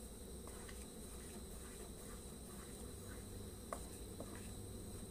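Wooden spatula stirring thick sago pearls cooking in a pan, heard as faint soft scrapes and a few light clicks, over a steady high-pitched hum.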